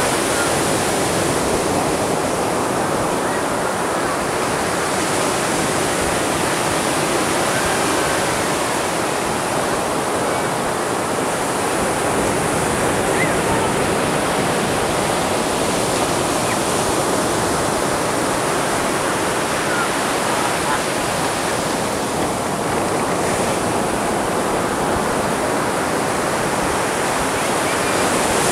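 Ocean surf breaking and washing up on a beach: a continuous rush of water that swells and fades slowly as waves break.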